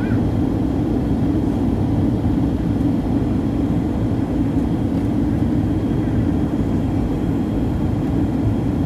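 Steady cabin noise inside a Boeing 737-900 airliner: an even rumble of its CFM56 jet engines and airflow, strongest low down, with a faint steady high tone above it.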